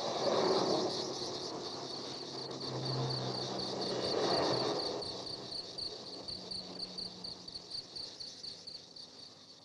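Two cars passing by, one at the start and another about four seconds in, each swelling and fading away. Underneath, insects chirp steadily, pulsing about four times a second.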